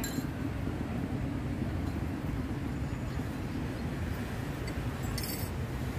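Steady low rumble of passing street traffic, with a short high clink a little past five seconds in.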